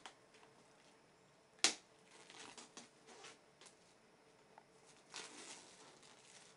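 Fingers picking and pulling at the plastic shrink-wrap on a cardboard box: faint crinkling and rustling, with a sharp click about one and a half seconds in and another short spell of rustling about five seconds in.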